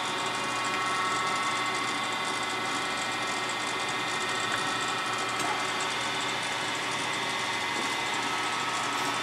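Sharp 8"x20" automatic cylindrical grinder running a traverse cycle: a steady machine whine of several held tones over a motor hum.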